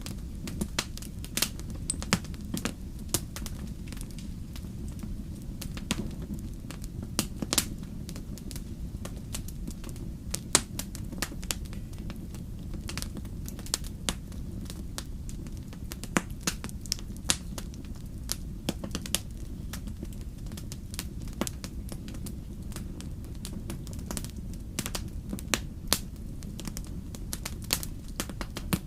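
Fire in a fireplace crackling, with frequent sharp pops at irregular intervals over a steady low rumble.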